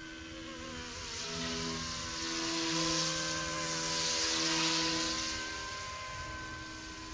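Electric motors and rotors of a YXZNRC F09 Black Hawk RC helicopter, a small electric Li-Po-powered flybarless model, whining and buzzing steadily as it flies by. The sound grows louder toward the middle and then fades as it moves away.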